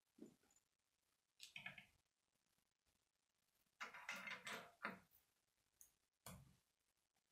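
Faint clicks and rattles of plastic K'nex rods and connectors being handled and snapped together, in a few short, irregular bursts, the busiest about four seconds in.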